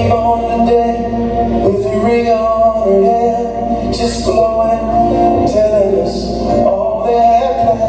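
A song with a male singer playing over a sound system for a slow dance.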